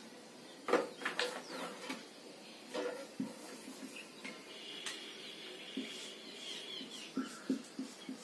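Marker and hand working on a whiteboard: short scratchy strokes early on, a thin high squeak held for about three seconds in the middle, then more short marker strokes near the end.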